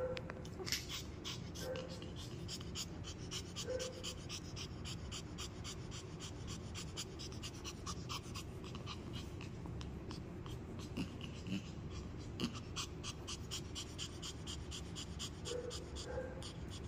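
Pomeranian panting in quick, regular breaths while it plays, with a few brief whimpers near the start and near the end.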